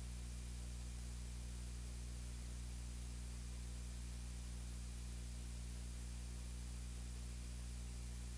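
Steady low electrical hum with hiss, the noise floor of the recording or sound system; no speech or other event.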